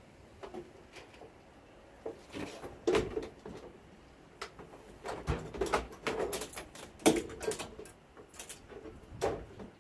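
A rubber windscreen seal being pushed and worked by hand onto the body flange of a classic Mini's windscreen opening: irregular rubbing, scraping and knocking sounds, with the loudest knocks about three and seven seconds in.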